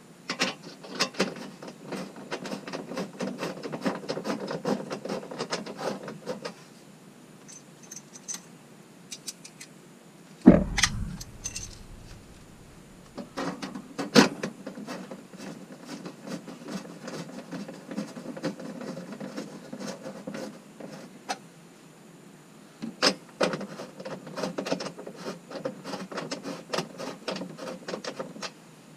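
Hands working a plastic fender-well liner and its small fasteners: clicking, light clinking and plastic rubbing, in stretches. A loud knock with a low thud about ten seconds in, and another sharp knock a few seconds later.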